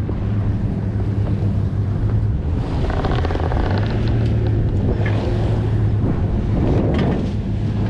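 A boat's engine running steadily with a low hum, mixed with wind buffeting the microphone and sea water against the hull.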